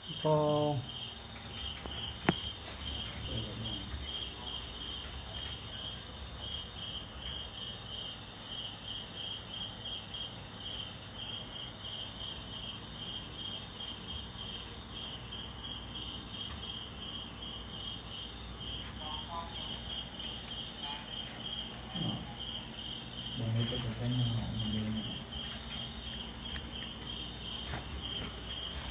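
Cricket chirping steadily: a high, fast-pulsed trill broken by brief pauses. A short voice sound right at the start and a low voice about three quarters of the way through are louder than the chirping.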